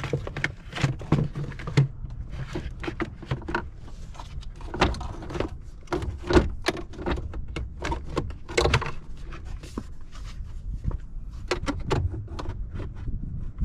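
Irregular clicks, knocks and rattles of plastic and metal engine-bay parts being handled and fitted back into place as the air intake is reassembled.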